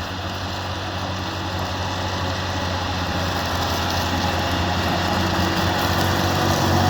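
John Deere 7280R tractor's six-cylinder diesel engine running steadily while pulling a seven-furrow plough, growing gradually louder as it draws nearer.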